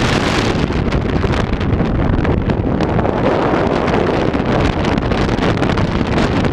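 Strong wind buffeting the microphone in continuous gusts: the back-side winds still blowing after a typhoon has passed.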